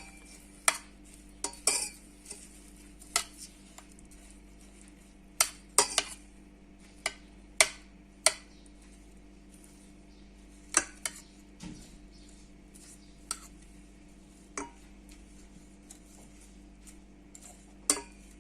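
A spoon knocking and clinking against a saucepan while a mixture of water, olive oil, garlic and herbs is stirred, in irregular sharp taps with short pauses between them. A faint steady hum lies underneath.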